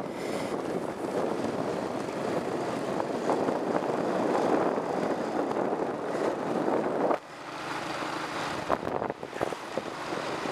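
Wind rushing over the microphone during a ride, a steady rush that drops suddenly about seven seconds in and then comes back quieter.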